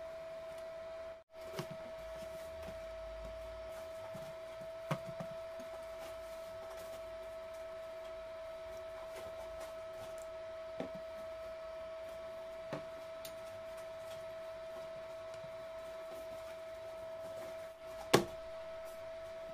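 A steady, fairly high-pitched whine with a few light clicks and one sharper knock near the end.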